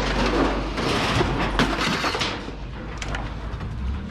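Loose scrap metal rattling and clanking in a loaded wire-mesh cage, over a steady low rumble. The clatter is busy for about two seconds, then eases to a few sharp knocks.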